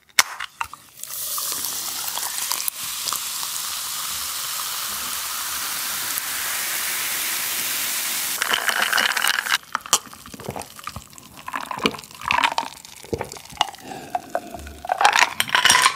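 A Coca-Cola can cracked open with a sharp click, then cola poured into a glass over ice, fizzing steadily for about eight seconds. Near the end come gulps as the cola is drunk.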